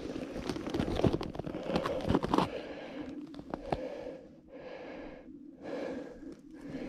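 A person breathing, with rustling and small clicks from hands pulling fishing line up through a hole in the ice. The clicks and rustles come mostly in the first half, and a few slow breaths in the second half.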